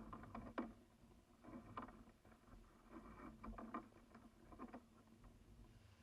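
Faint sounds of a kayak being paddled: irregular clusters of light knocks and water splashes.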